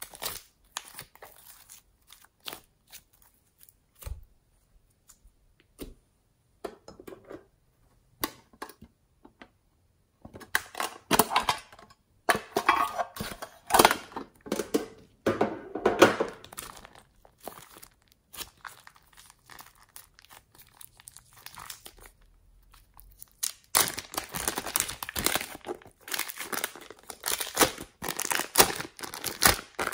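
Pink glossy slime squeezed and stretched by hand, making sharp clicks and crackles in spells with quiet gaps between. In the last six seconds there is a steady crinkling of a plastic bag as the slime is kneaded inside it.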